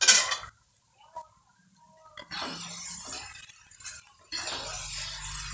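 Metal spatula knocking and scraping in a metal wok while fried eggs in chili sambal are stirred. There is one sharp clink at the very start, a small click about a second in, then scraping, and a steady low hum from a little past the middle.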